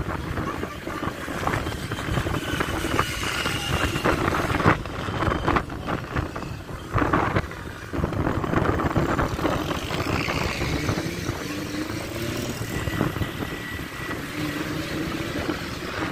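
Road traffic with large buses passing, the engine and tyre rumble mixed with heavy wind buffeting the microphone in gusts. Only faint, short tones come through; no clear musical horn stands out.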